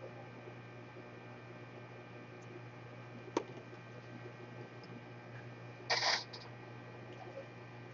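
Steady electrical mains hum on a workbench. A single sharp click comes about three and a half seconds in, and a brief louder scrape about six seconds in.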